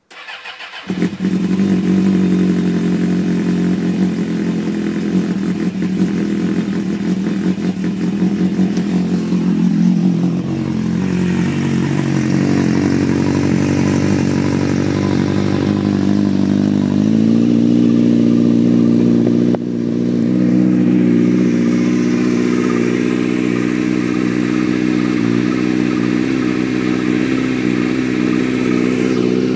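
A Suzuki GSX-R 750 SRAD inline-four motorcycle engine with a Takkoni aftermarket slip-on exhaust starts about a second in and idles. The idle sags a little near the middle, then steps up slightly and holds steady.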